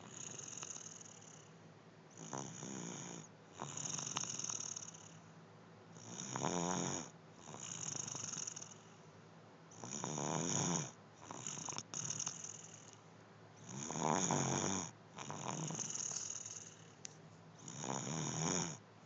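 Steady rhythmic snoring: a loud snore about every four seconds, with a softer snore between each pair.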